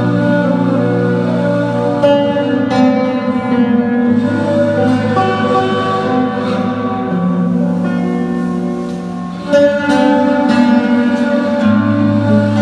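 Slow instrumental music on plucked string instruments (guitar and oud), with notes plucked over long held low notes; it thins out briefly and comes back with a sharp new attack near the end.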